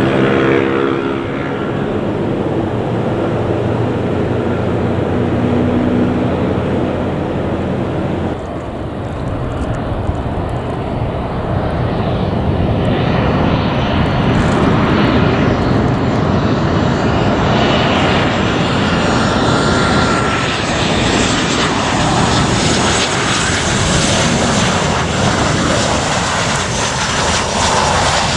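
Jet airliner engines. First an Airbus A321 rolls along the runway with a steady hum of several tones. After a sudden change about eight seconds in, a Boeing 737-700's engines give a steady rushing noise on final approach as it descends toward the runway near the end.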